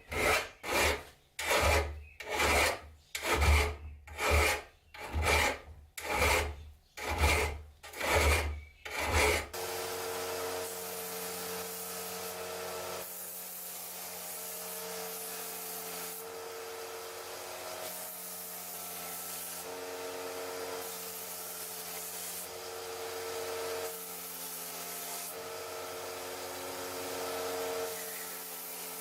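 Hand file rasping back and forth across the metal of a rusty padlock in steady strokes, about one and a half a second. About nine seconds in, the filing stops abruptly and a steady hum of several held tones, shifting every couple of seconds, takes over.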